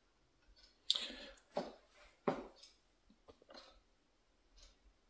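A few sharp clicks and short knocks about a second apart from hands working a Mitutoyo digital height gage; the first, about a second in, is the loudest.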